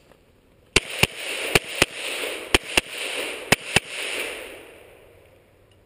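Glock 17 9mm pistol fired in four quick double taps, eight shots in pairs about a third of a second apart and roughly a second between pairs, each followed by rolling echo that dies away a second or so after the last shot.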